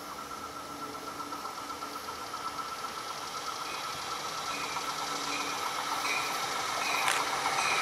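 An NJ Transit Multilevel commuter train approaching on the rails, its wheel and rail noise growing steadily louder as it nears. A steady high ringing tone runs above the rumble, with a short sharp click about seven seconds in.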